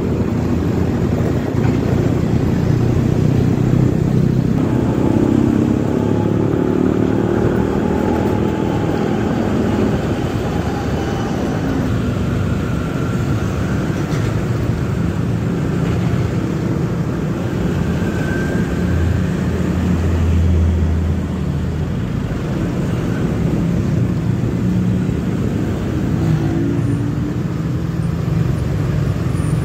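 Steady road and wind noise from a motorcycle riding in dense traffic, with the running engines of container trucks and motorbikes close by. A low drone swells briefly about two-thirds of the way through.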